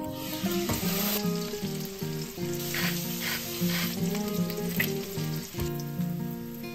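Chicken pieces sizzling as they fry in butter in a stainless steel pan, with tongs scraping and turning them a few times in the middle. Background music plays underneath.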